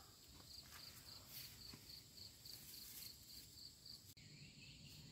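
Faint cricket chirping at a steady rate of about three chirps a second, over near silence; it stops suddenly about four seconds in.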